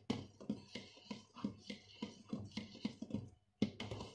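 Thick liquid-soap paste being worked in a stainless steel pot, in quick stirring strokes about four a second, with a brief pause near the end.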